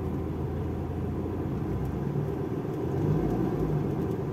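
Daihatsu Charade Classy engine idling steadily, heard from inside the cabin, with the air conditioning switched on; the hum gets a little louder about three seconds in.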